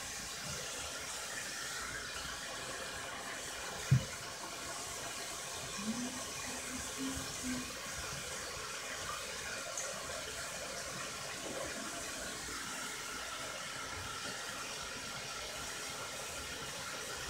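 Steady hiss with a single sharp thump about four seconds in, followed a couple of seconds later by a few short, low pitched sounds.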